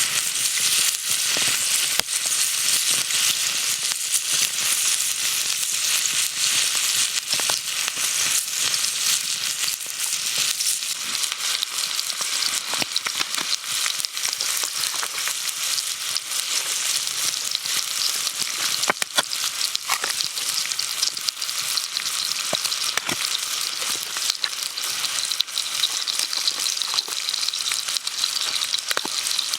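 Food frying in a hot pan: a steady sizzle with scattered sharp pops.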